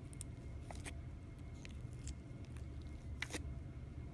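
Faint crunching of foam beads in a soft slime as a finger pokes and presses it in its container, heard as a few scattered small crackles and pops, over a low steady hum.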